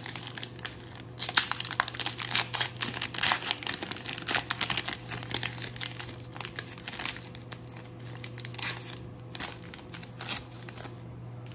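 Wrapper of a 2020 Topps Gypsy Queen baseball card pack torn open and crinkled as the cards are pulled out and handled: dense crackling, heaviest in the first half and thinning out near the end.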